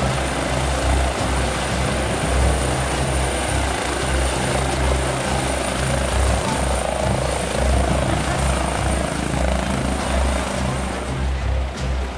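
Medical trauma helicopter hovering low and coming down to land, its rotor making a deep, pulsing beat over the steady engine noise.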